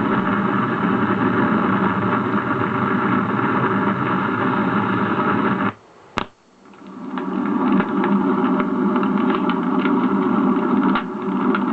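Sound-effects recording played from a vinyl record: a steady mechanical running noise that cuts off suddenly about six seconds in, a single sharp click, then another steady machine-like running sound fading back in with scattered ticks.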